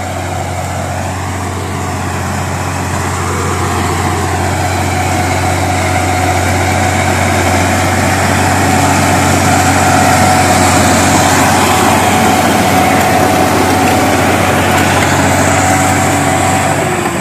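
Crawler bulldozer's diesel engine running steadily under load as it pushes earth with its blade, growing louder over the first several seconds as the machine comes closer.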